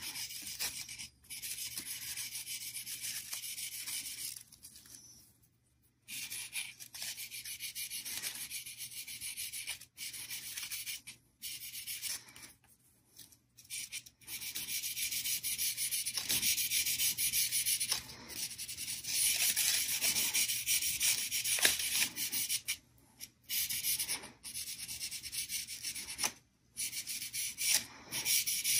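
Marker tip rubbing and scratching along a crepe-paper-covered flower stem. It comes in stretches of one to several seconds with short pauses between them, a dry, high hiss.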